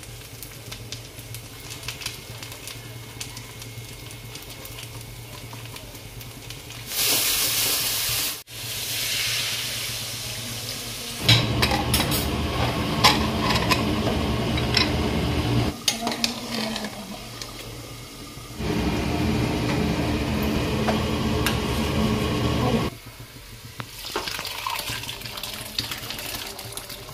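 Kitchen sounds of food being made: utensils clinking and stirring in a pan, in several short clips joined together, with sudden jumps in loudness between them.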